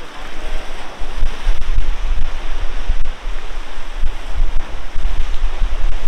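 Wind buffeting the microphone in gusts over the steady wash of surf against jetty rocks.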